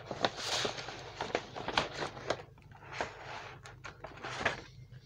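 Plastic packaging of craft supplies rustling and crinkling as it is handled and rummaged through, with irregular light clicks and taps.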